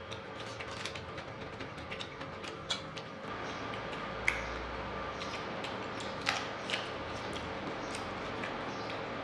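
Close-miked eating by hand: fingers working rice on the plates and chewing, heard as a scatter of small sharp clicks and smacks, with a louder one about four seconds in and two more a couple of seconds later. A faint steady hum lies underneath.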